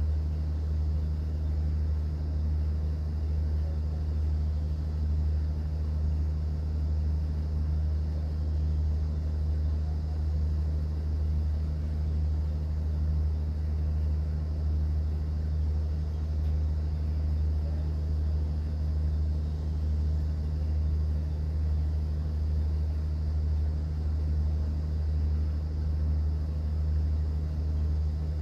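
Cruise boat's engine running steadily: an unchanging low hum with a fainter even wash of noise over it.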